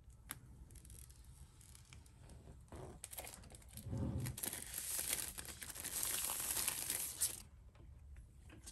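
Clear plastic seal strips being pulled and peeled off an iPad Air box: a crinkling, tearing crackle that builds about three seconds in, is loudest in the middle, and stops sharply near the end.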